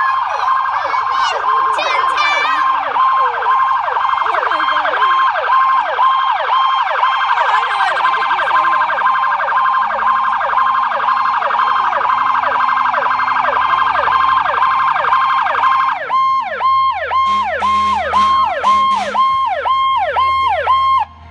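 Emergency vehicle sirens from approaching red fire-department-style vehicles. A fast warbling siren runs until about three-quarters of the way through and then stops. Under it and after it, a pulsing high-low siren tone repeats about twice a second, with a lower tone slowly falling beneath.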